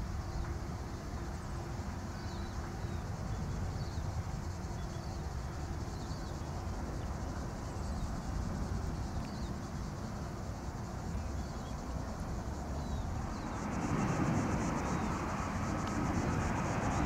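Boeing 787-9 airliner on final approach: a low, distant jet-engine rumble that swells and grows louder about three-quarters of the way through as the plane nears. Faint high chirps repeat every second or so.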